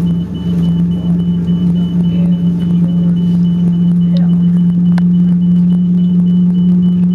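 Airbus A330-200's engines heard from inside the passenger cabin, a loud steady low drone as the airliner moves on the ground. A faint, quick train of high beeps from the crew rest alarm runs alongside it.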